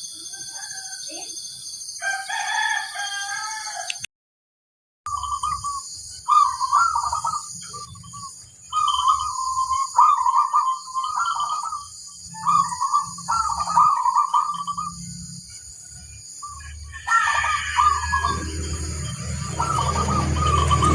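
Zebra dove (perkutut) cooing in repeated rippling phrases, several in a row, over a steady high-pitched whirring. The sound drops out completely for about a second just after the start, and a low rumble rises under the calls near the end.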